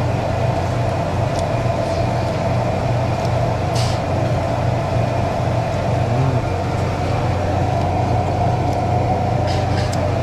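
Steady low mechanical hum with a fainter higher drone, unchanging throughout, and a few light clicks about four seconds in and again near the end.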